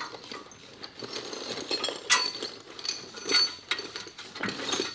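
Metal exhaust tubing and fittings clinking and knocking irregularly as they are handled and test-fitted, with the sharpest knock about two seconds in.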